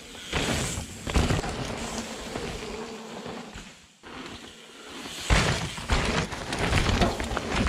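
Mountain bikes riding past close by on a dirt trail: tyres rolling and skidding over dirt and loose rock, the bikes rattling, and freewheel hubs clicking as they coast. A first pass comes in the opening seconds, then it is quiet for a moment, and a louder pass follows from about five seconds in.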